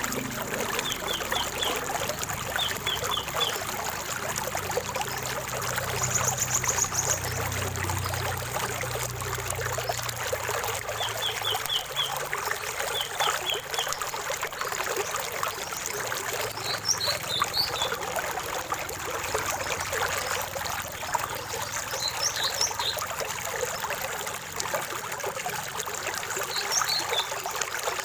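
Water trickling and splashing in a small stream, with birds calling over it: several quick groups of three to five high chirps, a brief high trill about six seconds in, and scattered sharper chirps later on.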